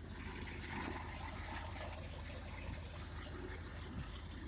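1967 Ford F100 engine idling steadily shortly after a cold start in freezing weather, with a faint hiss over the low running note.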